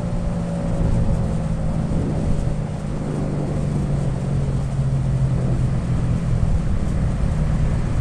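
Steady low hum of a motor vehicle's engine running, with an even rushing noise over it.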